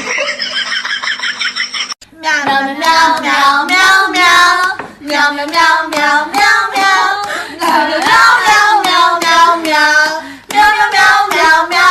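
A high-pitched voice singing in a quick run of short notes that bend up and down, about two a second, after a shorter rising call in the first two seconds.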